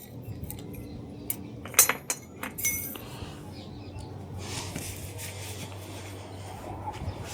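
Used metal motorcycle parts clinking against each other as they are handled, with several sharp clinks between about one and three seconds in.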